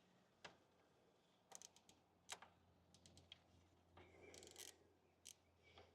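Faint, scattered light clicks and metallic taps of an Allen key working on the bolts of an engine's vacuum pump, with a short scrape about four seconds in.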